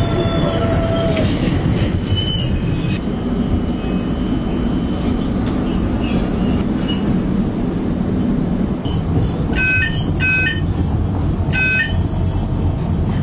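Inside a running tram: a steady low rumble from the car, then a few seconds before the end the door warning signal beeps three times in short bursts.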